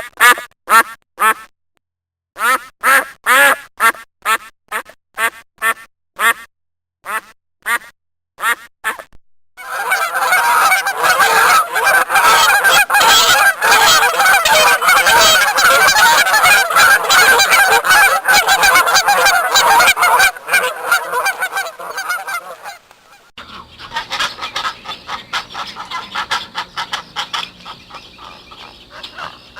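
Geese and ducks honking and quacking: first runs of separate loud calls, then from about ten seconds in a dense flock chorus of overlapping calls, which gives way near the end to quieter, sparser calling.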